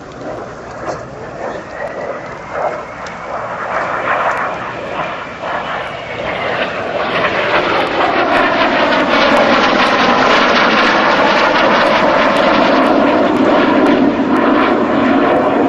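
Fouga Magister's twin Turbomeca Marboré turbojets approaching and passing low overhead. A thin whistling whine rises at first, then the jet noise grows loud about halfway through and stays loud, with a sweeping, shifting pitch as the jet goes by.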